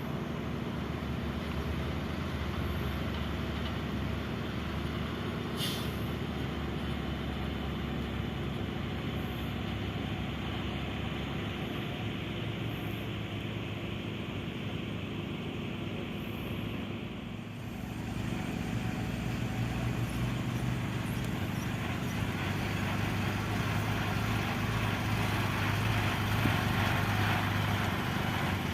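Caterpillar excavator's diesel engine running steadily while loading base course into a dump truck. The engine sound dips briefly a little past halfway, then comes back louder. One short sharp click comes about six seconds in.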